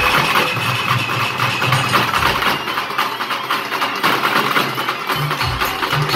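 A troupe of dhol barrel drums played together in a fast, loud rhythm, with a dense clatter of rapid strokes over it. The deep drum beats drop out for about three seconds midway and come back near the end.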